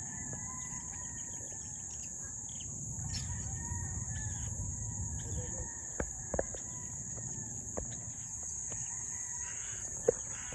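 A rooster crowing faintly over the steady high chirring of insects, with a few sharp knocks, the loudest near the end.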